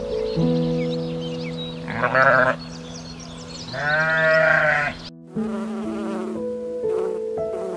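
Barbary sheep bleating: a short bleat about two seconds in and a longer one about four seconds in, over soft piano music. After a cut near the end, a honeybee buzzing at blossom.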